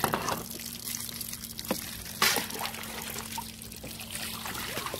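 Water trickling and dripping as a plucked chicken is rinsed on a plastic table, with small clicks of handling and one brief louder burst a little after two seconds in.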